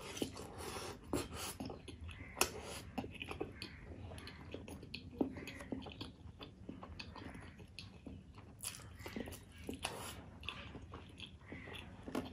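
Close-miked chewing of a mouthful of curried boiled egg, with wet smacking and many small mouth clicks throughout.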